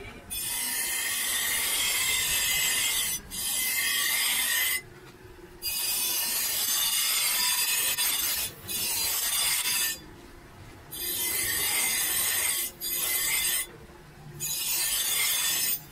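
Edge of a steel meat cleaver ground against a spinning bench-grinder wheel: a harsh, high grinding hiss in about six passes of one to four seconds each, dropping away in short pauses between passes.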